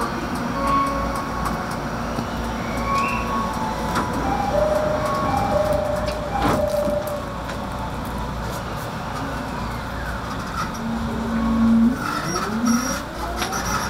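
Inside the motor car of a JR East 209-500 series EMU, against steady interior noise: short tones at several pitches sound in the first half. About twelve seconds in, the GTO-thyristor VVVF inverter starts its set of rising whines as the train begins to accelerate away.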